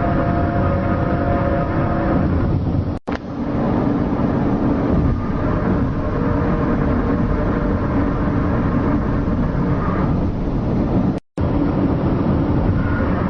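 A loud, steady low rumble with a few held droning tones over it, of the kind posted as the unexplained 'strange sounds in the sky'. It cuts out abruptly twice, about three seconds in and about eleven seconds in, and each time resumes with the drone slightly changed.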